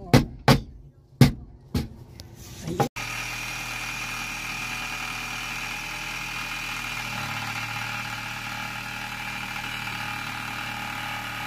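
A hammer tapping on a metal piano hinge on a plywood bed platform: a quick series of sharp taps, about two or three a second. Almost three seconds in it cuts to a steady engine-like hum.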